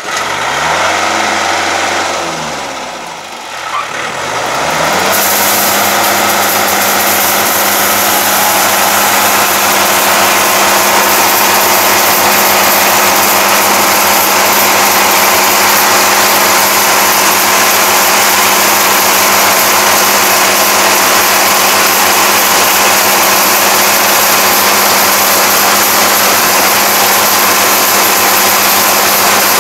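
Yanmar AE447 combine harvester's diesel engine running under load as the machine cuts standing grain. In the first few seconds its pitch sags and then climbs back; from about five seconds in it holds a steady, loud working speed.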